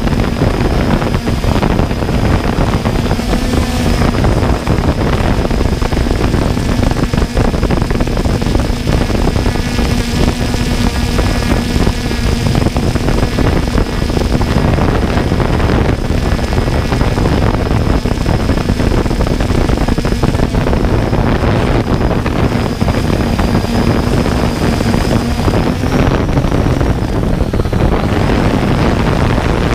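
Off-road vehicle's engine running steadily at idle under heavy wind noise on the microphone; the engine note rises slightly near the end as the vehicle moves off.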